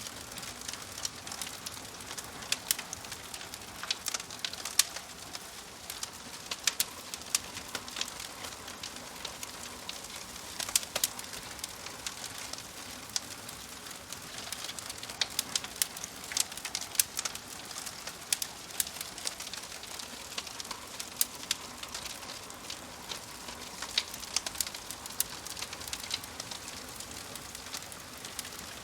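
Wood fire crackling in a wood-burning stove: frequent sharp pops and snaps, several a second, over a steady soft hiss.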